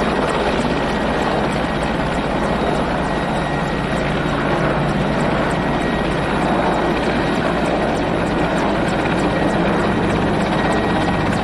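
Mil Mi-17 helicopter running on the ground, its twin turboshaft engines and rotor making a steady, loud noise.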